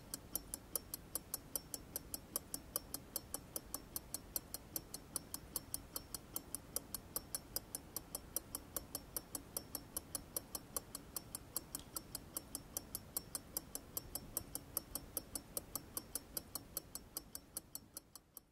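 Antique pocket watch ticking close up, about five ticks a second, fading out near the end.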